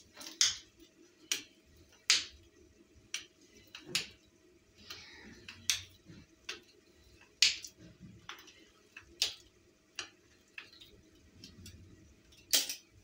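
Irregular sharp clicks and light taps as hands lift, press and lay dough strips on a tiled countertop, with a faint steady hum underneath.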